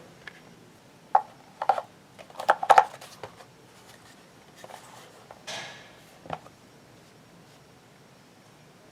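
Light clicks and knocks of a scale being handled during repair, several in the first three seconds, a short scraping swish about five and a half seconds in, and one more click soon after.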